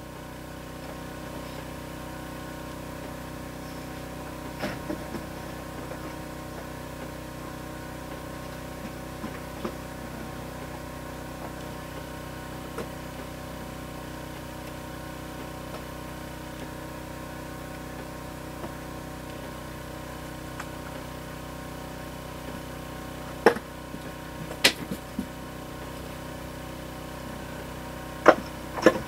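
A small engine running steadily at a constant speed, with a few sharp knocks about two-thirds of the way through and again near the end.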